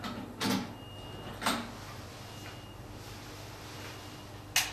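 Switch key clicking into the laser console's key switch and being turned: two sharp clicks about a second apart. Another, louder sharp click comes near the end, over a steady low hum.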